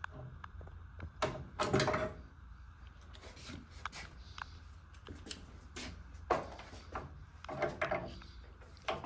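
Hand work with tools on a fixture: irregular clunks, knocks and scraping rubs, with the busiest clatter about two seconds in and again near the end.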